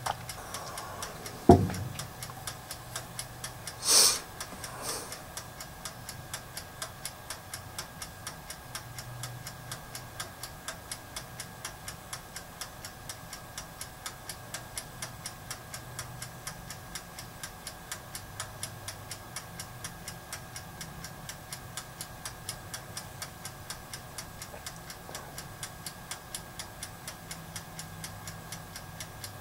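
A mechanical timer ticking steadily over a faint low hum while the toaster oven runs a solder-reflow cycle. A single sharp knock comes about a second and a half in, and a short hiss a couple of seconds later.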